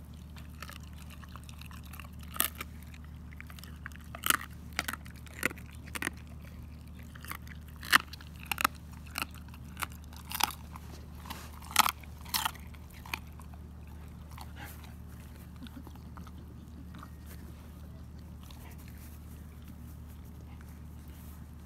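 German Shepherd dog crunching through raw chicken bones: a string of sharp, irregular cracks from a couple of seconds in until about halfway, then quieter chewing over a steady low hum.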